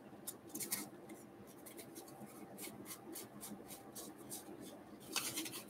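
Baseball cards being flipped through and slid against each other in the hands: a faint run of quick flicks and rustles, with a longer, louder slide about five seconds in.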